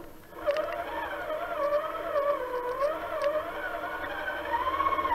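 Traxxas Summit RC truck's electric motor and gearbox whining as it drives, the pitch wandering up and down with the throttle. The whine starts about half a second in and climbs higher and louder near the end.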